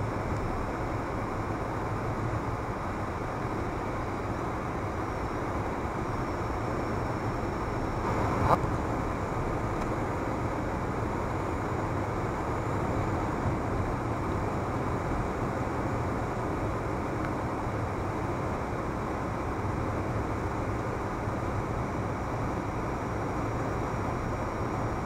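Steady road and engine noise of a car cruising on a highway, heard inside the cabin through a windshield-mounted dashcam, with a single sharp knock about eight and a half seconds in.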